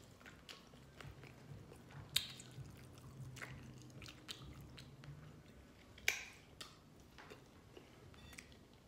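Close-up mouth sounds of someone chewing a fried chicken and glazed donut sandwich with lip smacking. Wet clicks and smacks come now and then, the sharpest about two seconds in and twice around six seconds.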